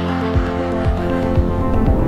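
Background music with a steady beat, a low thump about twice a second under sustained melodic notes.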